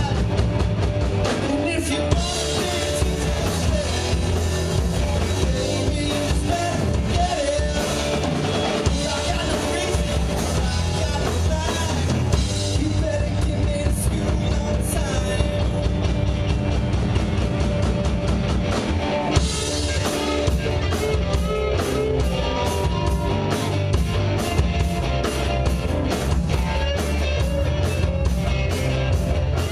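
A live rock band playing a song: drum kit, electric guitar and bass with a singer. About two-thirds of the way in, the drummer starts a steady, even cymbal beat.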